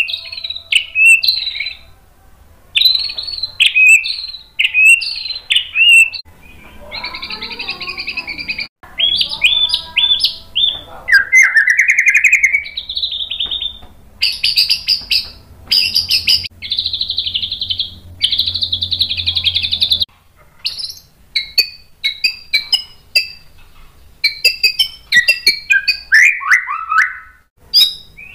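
White-rumped shama (murai batu) in full song: a long, varied run of quick whistled phrases broken by harsh buzzy rattles a second or so long, with a rising glide about twelve seconds in and a falling glide near the end.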